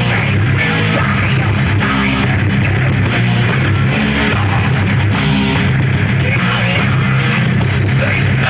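Live heavy metal band playing loud, with distorted electric guitars, bass and drum kit in a steady driving rhythm.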